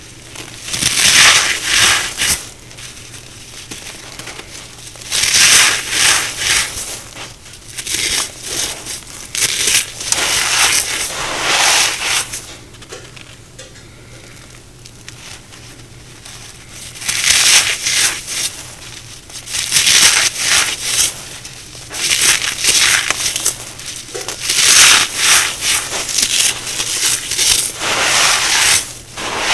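Brittle dried cornstarch chunks being crushed, a crisp crackling crunch that comes in repeated bouts of a second or two with short pauses between.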